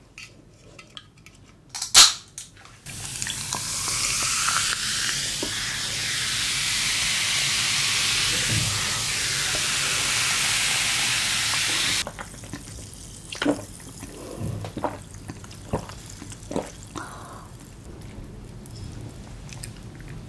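A can of Fanta strawberry soda snapped open with one sharp pop, then poured over ice into a glass: a loud, steady fizzing hiss for about nine seconds that stops suddenly. After it, a few light knocks as the glass and can are handled and set down.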